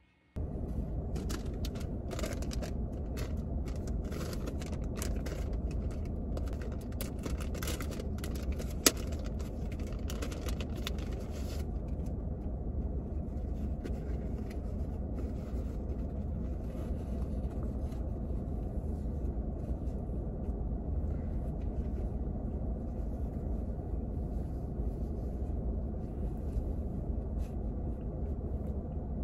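Steady low rumble of a running car heard from inside the cabin. Over it, for about the first twelve seconds, come quick rustles and clicks of things being handled, with one sharper click partway through.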